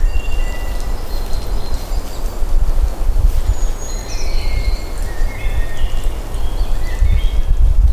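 Outdoor ambience: a loud, uneven low rumble under several birds chirping in short, high notes.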